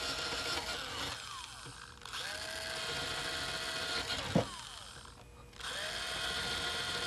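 Electric hand drill with a 1/8-inch bit boring a row of small holes in a wooden model-airplane fuselage side: three times the motor spins up, runs for a second or two and winds down. A single sharp knock about four seconds in.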